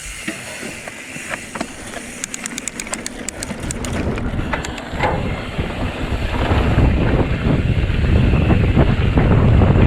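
A mountain bike rolls off along a dirt trail: tyre and trail noise under wind buffeting the microphone, growing louder as speed builds. A quick run of ticks comes about two seconds in.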